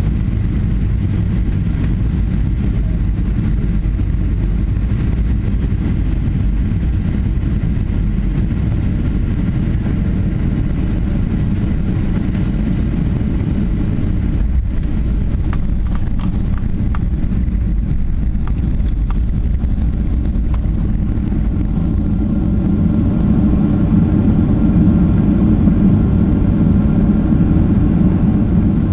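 Boeing 737-800 cabin noise from a window seat: the CFM56-7B engines and airflow run as a steady low rumble. There is a single knock about halfway through, and the engine noise grows a little louder near the end.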